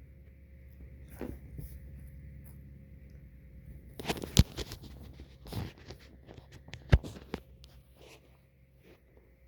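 Quiet breathing of a sleeper, with little or no wheeze, over a steady low hum. A few sharp clicks and knocks come through, the loudest about four and a half seconds in and at seven seconds.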